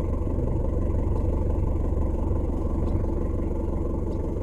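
Vehicle engine running steadily, a constant low rumble.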